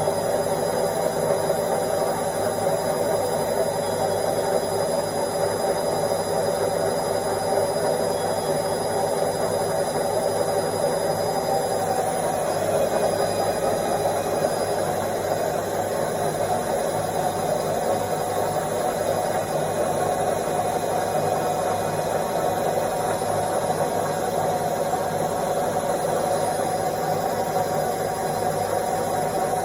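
Indesit washing machine spinning its drum on the spin cycle: a steady motor whine over a hum, with a slight shift in pitch about twelve seconds in.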